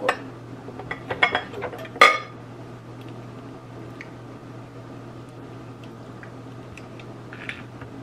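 Clinks and clatter of kitchen utensils being picked up, several in the first two seconds with the loudest clatter about two seconds in, then faint taps of apples and a vegetable peeler handled on a plastic cutting board, over a steady low hum.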